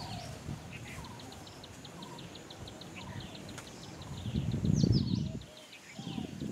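Birds calling with short chirps and whistles over a rapid high ticking of about eight ticks a second that stops about four seconds in. A low rushing noise builds and is loudest about five seconds in.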